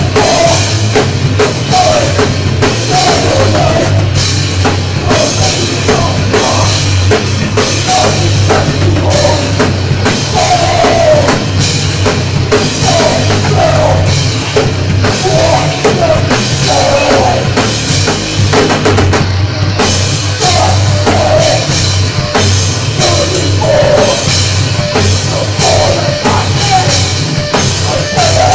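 A live heavy rock band playing loud: a pounding drum kit and distorted bass guitar, with a vocalist shouting into the microphone in repeated bursts.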